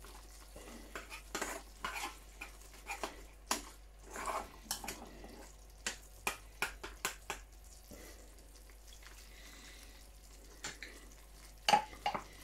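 Metal spoon stirring a simmering buffalo sauce in a small saucepan, scraping and clinking against the pan in irregular strokes over a faint sizzle. The stirring stops about two-thirds of the way through, and a few sharp clinks of the spoon on the pan come near the end.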